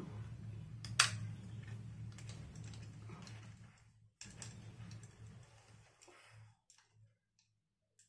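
A chest-mount camera harness being unbuckled and pulled off: a sharp plastic buckle click about a second in, then straps and fittings rustling and clicking, dying away after about six seconds.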